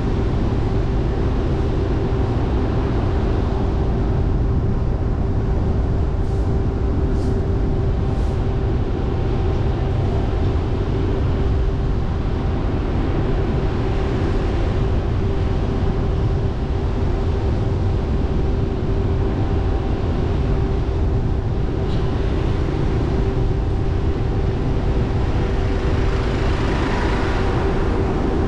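Car driving slowly along a city street: a steady low rumble of engine and tyres with a constant hum.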